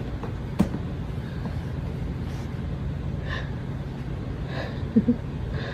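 Dogs sniffing: a few short, soft snuffles and breaths over a steady low hum, with a single click about half a second in.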